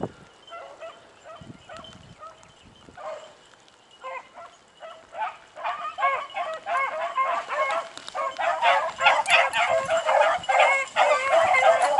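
A pack of beagles baying as they run a scent trail, many hounds giving voice in short repeated bawls. It starts faint and scattered, then grows steadily louder and denser from about halfway as the pack draws nearer.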